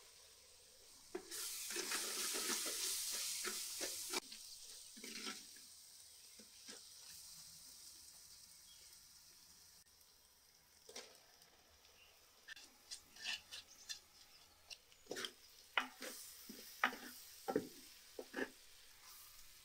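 Crushed chili and spices sizzling in a hot clay cooking pot, loudest for a few seconds near the start and then settling to a faint hiss. In the second half a metal spoon clicks and scrapes against the clay pot as chopped onions go in and are stirred.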